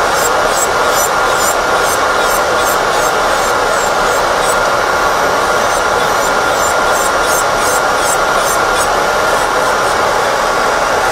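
Electric nail drill running with a steady whine, its bit grinding off an old manicure in short repeated scrapes about twice a second that stop near the end, over the steady fan noise of a nail dust collector.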